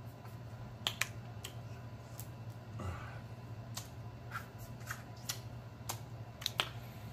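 Close-miked eating sounds from a seafood boil: irregular sharp, wet lip smacks and mouth clicks while chewing, over a steady low hum.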